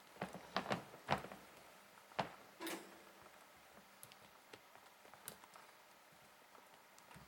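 Light taps, knocks and scuffles from kittens at play: a cluster of sharp knocks in the first second or so, then a few isolated ones spread through the rest.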